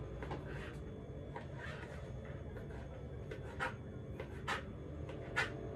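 A kitchen knife chopping sausage into small cubes on a plastic cutting board: irregular sharp taps of the blade against the board, a few of them louder towards the end.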